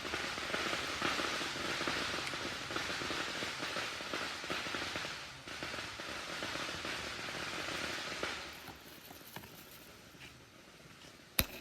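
Consumer ground firework crackling: a dense spray of tiny crackles that keeps up, briefly dips, and dies away about eight seconds in. A single sharp click comes near the end.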